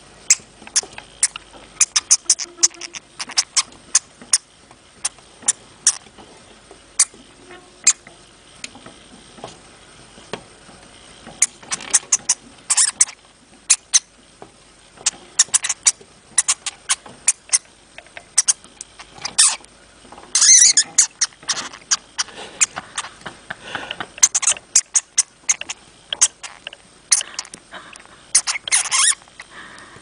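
Hamster making short, high-pitched squeaks and clicks in irregular flurries, some louder bursts bunched together and quieter gaps between them.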